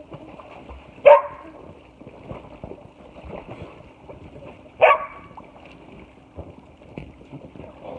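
A dog barks twice, one short bark about a second in and another almost four seconds later.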